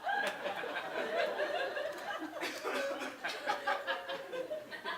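Live audience laughing, scattered chuckles and laughs dying down after a punchline.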